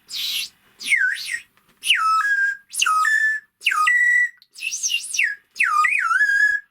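3D-printed plastic bird whistle with water in it, blown in about seven short puffs. Each chirp starts with a quick downward swoop in pitch and settles into a short tone, wavering on some puffs.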